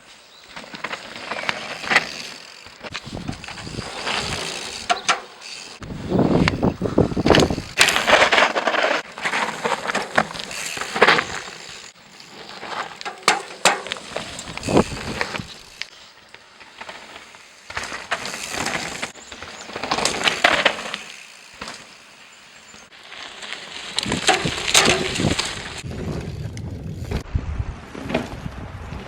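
Mountain bike ridden over a rough dirt trail: tyre noise and the rattle and clatter of the bike over bumps, in loud surges with quieter stretches between.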